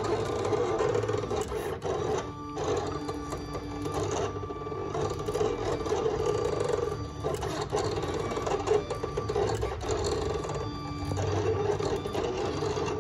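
Cameo cutting plotter running a cut on heat transfer vinyl: a steady motor whir as the blade carriage and rollers move, breaking off briefly a few times as the carriage stops and changes direction.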